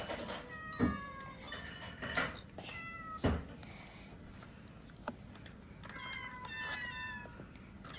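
Recorded cat meows played by a children's piano sound book: several short meows falling in pitch, a group near the start and another cluster near the end, with a few short knocks in between.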